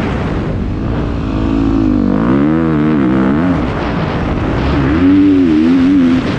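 Motocross bike engine under the rider, revving up and down with the throttle, the pitch rising and falling several times, heard from a helmet-mounted camera.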